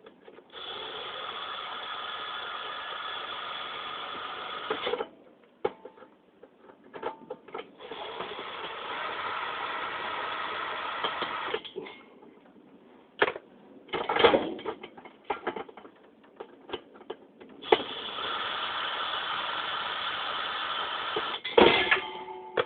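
Power drill-driver running in three steady bursts of about four seconds each, backing out the three screws of a ceiling fan, with clicks and clatter of metal parts being handled between the runs.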